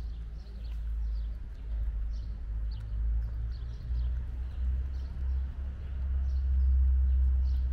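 A cat chewing and smacking wet food close up, with short wet mouth sounds about two to three times a second. A low rumble runs underneath and grows louder about six seconds in.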